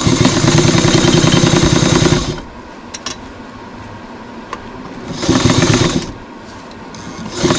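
1969 electric sewing machine stitching cushion fabric with a rapid, even needle chatter. It runs for about two seconds, stops, gives a shorter burst around five seconds in, and starts again near the end.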